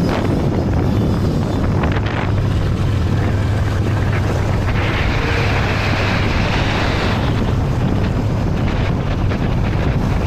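Loud wind buffeting on the microphone over a steady low engine hum, with a stretch of brighter hiss in the middle.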